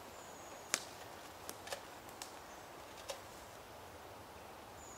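Quiet woodland ambience with a few faint, sparse clicks and snaps. A thin, high, short note sounds near the start and again at the end.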